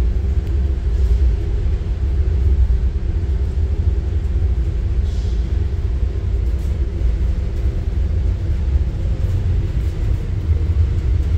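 A steady low rumble, with a faint brief higher sound about five seconds in.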